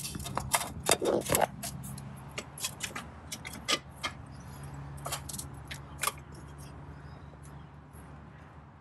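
Plastic battery tray in a car engine bay being wiggled and tugged by hand: a run of clicks, knocks and rattles, busiest in the first second and a half, then sparser. The tray is still held down by one more bolt, so it shifts and knocks without coming free.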